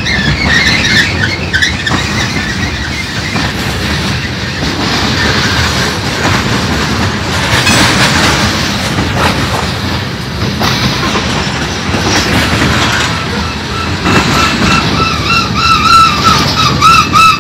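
Freight train cars (hoppers, tank cars and boxcars) rolling past close by: a steady rumble and clatter of steel wheels on rail. A high squeal from the wheels is heard briefly at the start, and a wavering squeal builds again from about two thirds of the way in.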